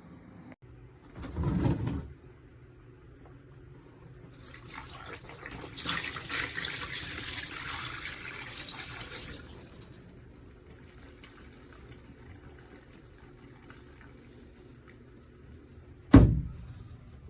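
Water running for about five seconds, as from a tap or a tank being filled or emptied. There is a dull thud about a second in and a sharp knock near the end.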